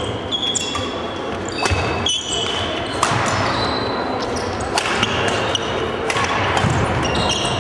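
Badminton rally: sharp racket strikes on the shuttlecock and many short high squeaks of shoes on the wooden court floor, echoing in a large hall.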